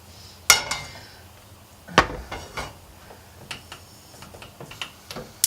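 Metal cookware clattering: a ringing clank about half a second in, a heavier knock at about two seconds, then a scatter of light clicks and taps.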